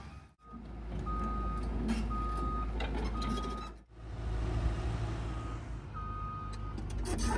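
Backup alarm beeping over a diesel engine running: a single-pitch beep about half a second long, repeating roughly once a second.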